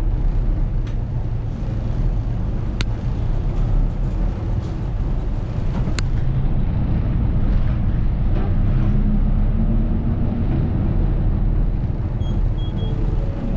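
A large vehicle's engine running with a steady low rumble, heard from aboard, with two sharp clicks about 3 and 6 seconds in.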